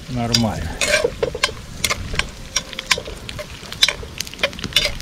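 A metal spoon scraping and clinking against the inside of a metal cooking pot in a run of irregular strokes, stirring pieces of goat meat that sizzle as they fry in oil. The meat is at the browning stage.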